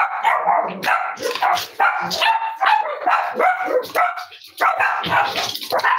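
Several Cavalier King Charles spaniels barking, with barks coming rapidly and overlapping from the moment it starts suddenly.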